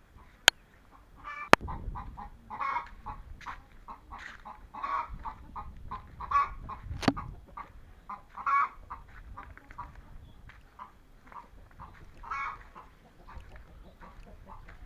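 Chickens clucking in short calls over and over, with three sharp clicks: two in the first couple of seconds and one about halfway through.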